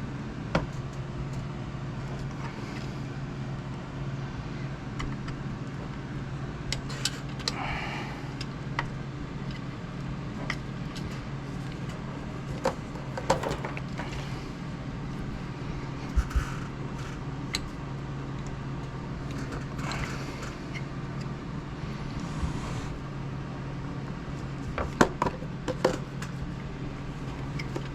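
Scattered light clicks and clinks of hand tools and metal parts as a generator mount is worked into a helicopter frame, over a steady low hum. The sharpest clicks come in a quick cluster about 25 seconds in.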